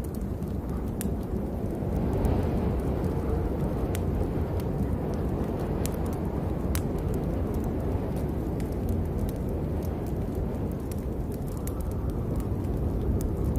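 Rainstorm: a steady low rumble of rain with scattered sharp drop ticks.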